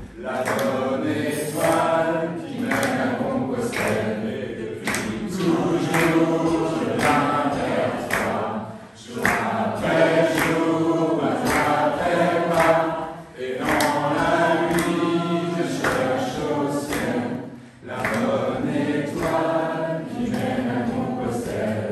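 A small vocal group singing a French song a cappella in several voice parts, phrase after phrase with short breaths between them.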